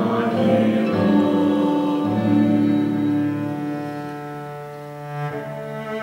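Contemporary chamber music played live by a cello and four classical guitars, with long held notes; it quietens about four seconds in and swells again near the end.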